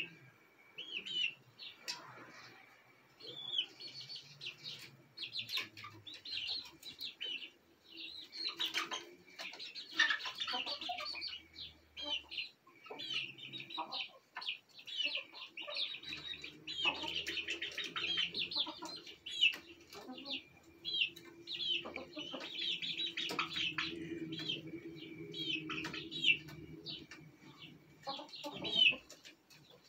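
Young chickens settling on their roost perch: a steady stream of short, high peeping chirps with soft clucks, and now and then a brief flutter of wings as a bird shifts along the pole.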